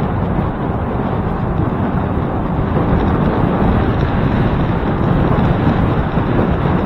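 Wind rushing over the microphone of a moving bicycle ride, a steady low rumbling noise without breaks.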